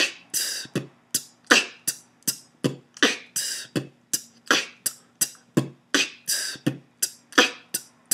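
Vocal beatboxing of the basic 8-beat loop 'B t K t t B K T': bass-drum 'B' kicks, 't' hi-hat clicks and 'K' snares made with the mouth, repeated in a steady, quick rhythm.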